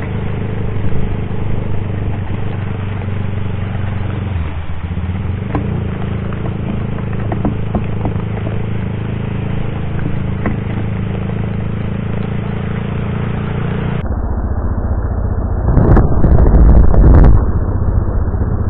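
Motorcycle engine running steadily while riding on a wet road in heavy rain, under a hiss of rain and tyre spray. Near the end, a loud rushing splash as a wave of water sprays over the bike and camera.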